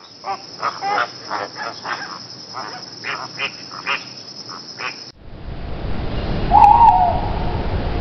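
Flamingos calling in a string of about a dozen short nasal honks, irregularly spaced. About five seconds in the sound cuts to a steady background hiss, and an owl gives a single short wavering hoot.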